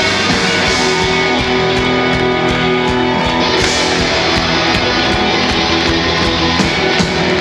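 Live rock band playing loud, with electric guitars over a steady beat.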